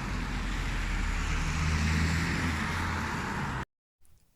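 Steady low rumble and hiss, with a low hum that swells about a second and a half in. It cuts off abruptly near the end.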